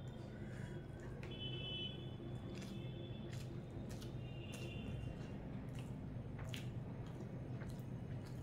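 Fingers mixing rice and curry on a plate, with soft wet squishing and small clicks, and the eater chewing. A steady low hum runs underneath.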